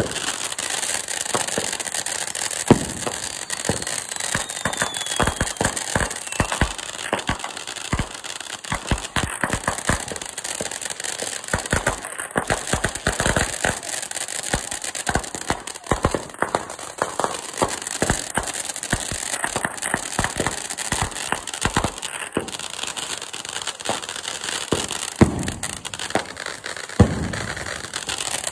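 Consumer firework fountain burning: a steady hiss of spraying sparks under dense, irregular crackling pops.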